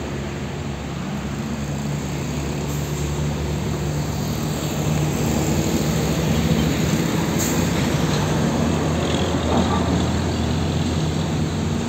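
Diesel engine of a tractor-trailer hauling a shipping container, running steadily and growing louder as the truck passes close by, loudest in the second half. A brief sharp tick is heard about halfway through.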